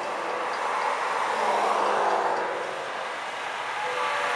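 Road traffic: a vehicle passing by, its tyre and engine noise swelling to a peak about two seconds in and then easing.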